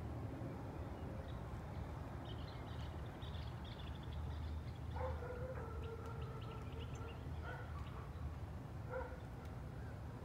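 An animal's drawn-out pitched call about halfway through, followed by two short calls near the end, over a steady low hum.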